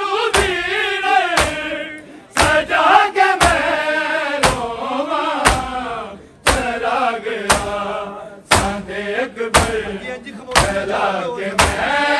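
A group of voices chanting a Punjabi noha, the Shia lament for Ali Akbar. Sharp thuds of matam chest-beating keep the beat, about once a second.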